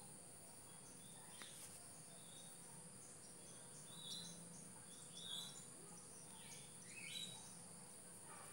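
Faint background of scattered short bird chirps over a steady high insect drone.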